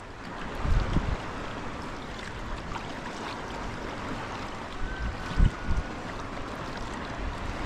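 Sea kayak being paddled: a steady wash of water splashing and trickling around the paddle and hull, with a few low thumps about a second in and twice more after about five seconds.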